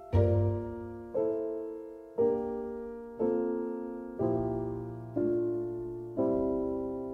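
Slow background piano music: a chord struck about once a second and left to fade before the next.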